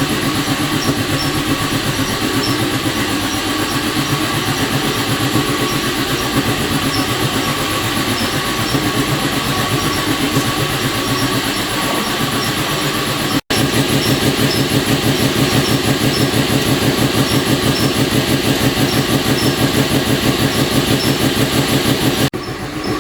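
Machine running steadily with a fast, even pulse, breaking off for an instant about halfway through and again near the end.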